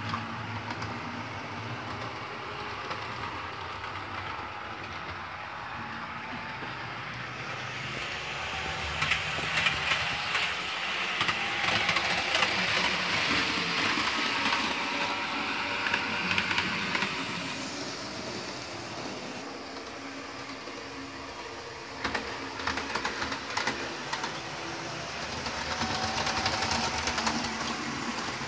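Model Class 158 Super Sprinter train running round the layout on freshly cleaned wheels: a steady motor-and-wheel running noise with scattered clicks. It grows louder for several seconds in the middle, eases off, and rises again near the end.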